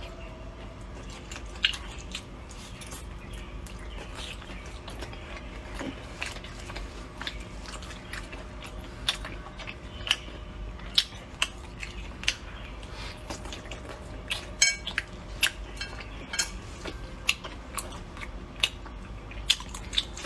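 A person chewing and biting food close to the microphone, with sharp clicks of utensils against dishes scattered throughout and coming more often in the second half.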